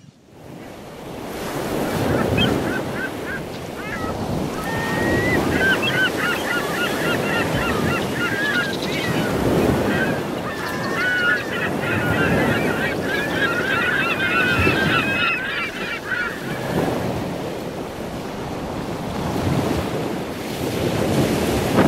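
Ocean surf breaking, with wind buffeting the microphone, and a flock of waterbirds calling over it: many overlapping calls start a couple of seconds in and die away about two-thirds of the way through.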